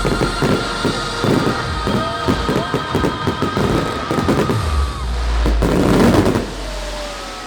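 Fireworks going off in rapid succession, many sharp bangs and crackles, with show music playing alongside. A dense, loudest cluster of bursts comes about six seconds in, then the bangs stop.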